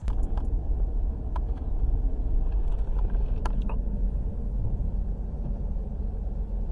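A vehicle running with a steady low rumble, with a few light clicks over it.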